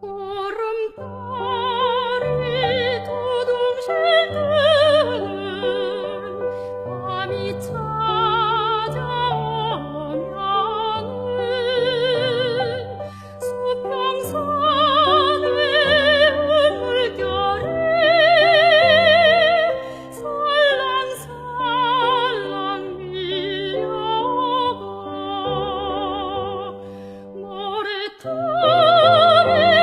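Soprano singing a Korean art song (gagok) in a classical style with wide vibrato, over piano accompaniment, in long phrases with brief breaks between them.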